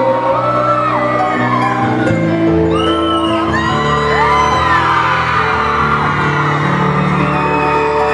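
Live music in a large hall: held keyboard chords under a singing voice, with whoops and shouts from the audience.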